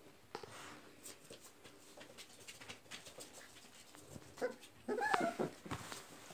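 Litter of 26-day-old American Pit Bull Terrier puppies tussling, with faint scuffling and then, a little past halfway, a few short high whimpering squeals that waver in pitch.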